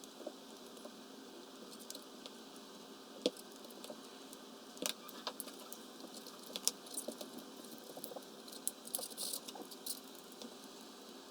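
Scattered light clicks and taps of a small screwdriver and small metal parts being handled while the screws of a 1/24 scale RC truggy's upper brace are taken out. The clicks come more often in the second half.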